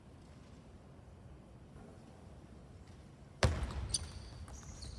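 Table tennis rally in a hall: quiet for about three seconds, then a sharp knock with a low thud as play starts, followed by lighter clicks of the ball off bats and table and brief squeaks of shoes on the court floor.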